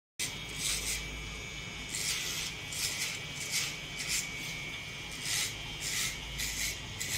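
Hair being cut close to the head: a run of short, rasping strokes, roughly one or two a second, over a faint steady hum, after a brief dropout at the very start.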